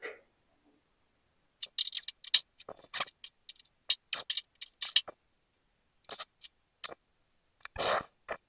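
Brazing rod tapping and scraping on an aluminum door skin, making irregular sharp metallic ticks and short scrapes, several a second at times. A longer scrape comes near the end.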